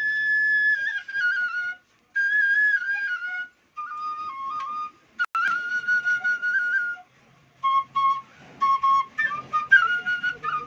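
Bamboo flute (bansi) played solo: a long held note, then short melodic phrases broken by brief breath pauses, turning to quick short notes near the end. A single sharp click about five seconds in.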